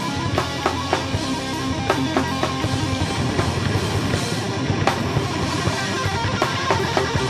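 Rock band playing live: electric guitars and bass guitar over a drum kit keeping a steady beat, with drum hits about three times a second.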